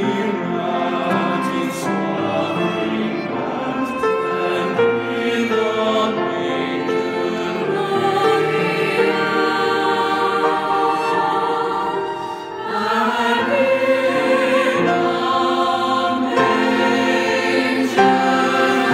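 A choir sings a hymn in long, held chords. There is a brief dip about twelve seconds in before the singing picks up again.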